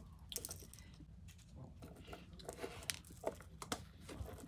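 Faint, irregular small clicks and ticks of a gold jewellery chain and chain-nose pliers being handled.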